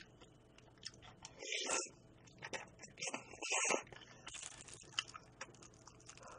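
Close-miked eating sounds: chewing and wet mouth noises over spoonfuls of cold spicy mulhoe with noodles, with light clicks of a spoon and chopsticks against a glass dish. Two louder wet mouth sounds come about one and a half and three and a half seconds in.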